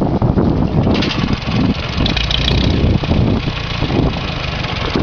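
Ferguson TEF20's four-cylinder diesel engine running steadily as the tractor drives slowly along, with an extra mechanical clatter that the owner puts down to the radiator fan and loose ball bearings in the cooling water pump.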